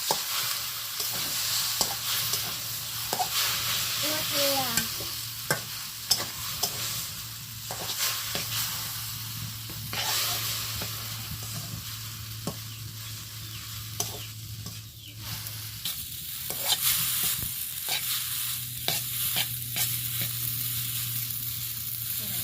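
Boiled, cooled egg noodles sizzling as they fry in oil with spices and egg, stirred and tossed in the pan with a spatula that clicks and scrapes against the metal over and over. A steady low hum runs underneath.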